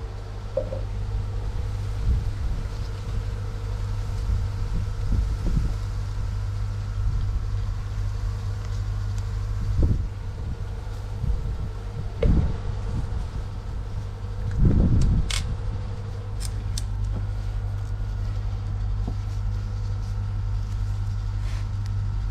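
Steady low machine hum with a few faint steady tones above it, broken by a few short handling knocks and clicks about ten to seventeen seconds in as PVC conduit fittings and a drawstring are handled.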